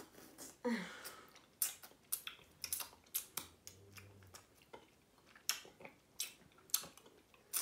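Soft mouth noises of a person tasting spoon-fed baby food: scattered lip smacks and tongue clicks, with a short falling hum-like vocal sound just under a second in.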